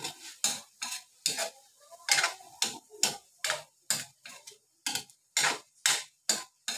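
Metal spatula scraping and knocking against an aluminium wok as pieces of meat are stir-fried, in quick strokes about three a second.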